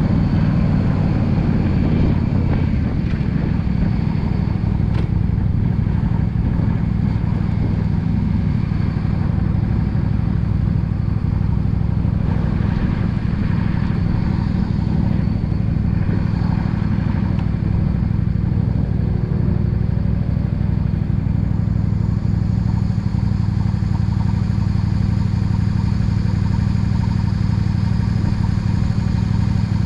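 Yamaha V Star 650 Custom's air-cooled V-twin engine running steadily while cruising.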